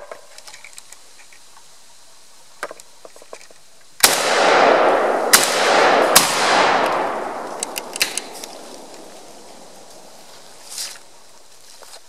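Three semi-automatic rifle shots from a scrap-built Hungarian AK-63D underfolder in 7.62×39, about four seconds in, the second and third following about a second and less apart; each trails off in a long echo over a couple of seconds.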